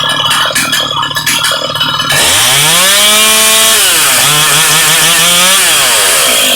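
Ported two-stroke Jonsered 535 chainsaw with an opened-up muffler, running unevenly at low speed and then snapping up to full throttle about two seconds in. The engine note then drops and holds lower, pulled down under load in a cut, before falling back toward idle near the end.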